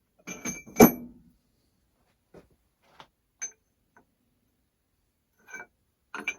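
Metal lathe parts being handled and set in place: a sharp metallic clank just under a second in, then a handful of lighter clinks and taps spread across the next few seconds.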